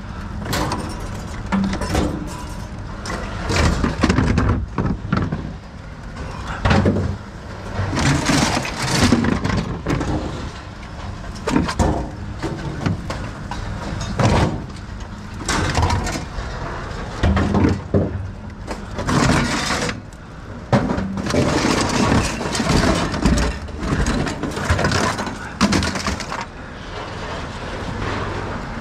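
Scrap metal clanking and banging in irregular knocks as pieces are handled and moved about in a pickup truck's steel bed, with boots stepping on the bed floor.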